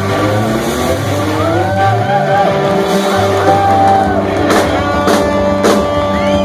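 Live blues-rock band playing loud: electric guitars with bending lead notes settling into a held chord, three drum crashes in the second half, and shouts and whoops from the crowd.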